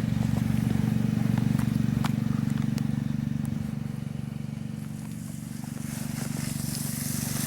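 A small engine running steadily at a low, even pitch, easing off a little midway and picking up again, with a few faint ticks over it.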